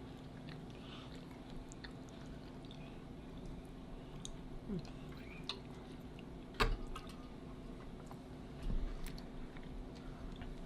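Close-up mouth sounds of a person chewing food, soft and wet, with scattered small clicks and one sharper click about six and a half seconds in.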